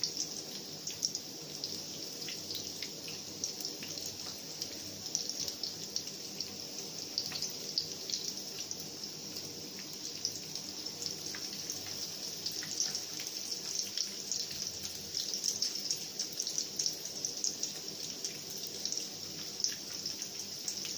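Egg-coated beef jali kababs shallow-frying in hot oil in a pan: a steady sizzle full of small crackles and pops, as beaten egg drizzled into the oil fries into a lacy net around them.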